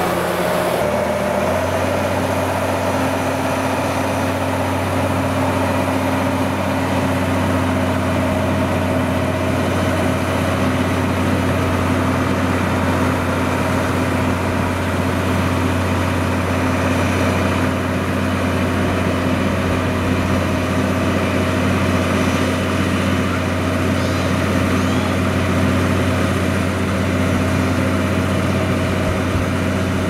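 Komatsu GD505A motor grader's diesel engine running steadily, its pitch and level even throughout.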